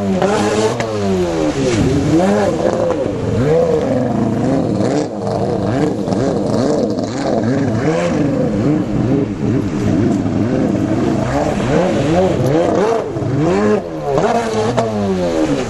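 Freestyle jet ski's engine with a Power Factor Products aftermarket exhaust, revving up and down over and over, its pitch sweeping rapidly between low and high every second or two. It is a first test with the engine barely tuned.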